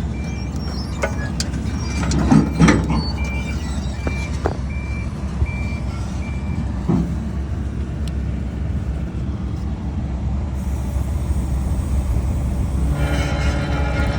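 A heavy-equipment backup alarm beeps repeatedly for the first half over a steady low engine drone, with a few knocks of handled metal. About 13 s in, a pitched mechanical hum with a steady rhythm starts up.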